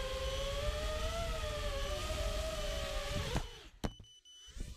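Diatone Tyrant S FPV quadcopter hovering, its brushless motors and propellers giving a steady whine whose pitch wavers slightly. About three and a half seconds in the motors cut out with a quickly falling pitch, and a couple of sharp knocks follow.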